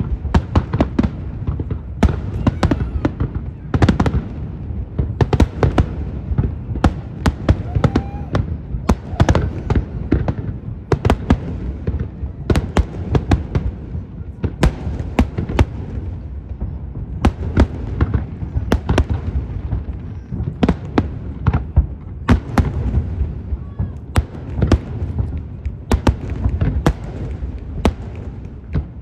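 Aerial fireworks display: a rapid, unbroken barrage of sharp bangs, several a second, over a steady low rumble.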